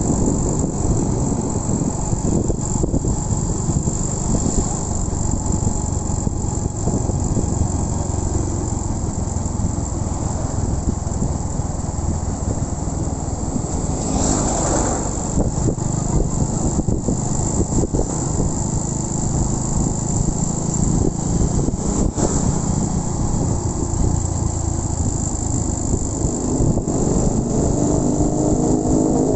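Honda Win 100 motorcycle's single-cylinder four-stroke engine running steadily while being ridden, under a constant rush of road noise. About halfway through, a louder whoosh lasts about a second.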